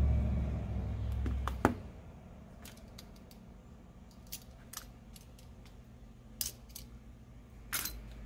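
Small sharp clicks and snips, a few scattered over several seconds, from a utility knife trimming thin double-sided adhesive tape on a phone frame, with handling of the tape roll. A low rumble fades out in the first two seconds.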